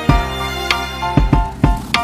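Background music with a steady beat: drum hits over held instrumental chords.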